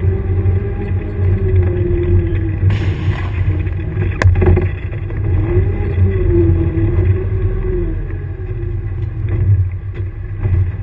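Engine of an airsoft combat vehicle running steadily, its pitch wavering slightly. There is a short hiss about three seconds in and a single sharp crack about four seconds in.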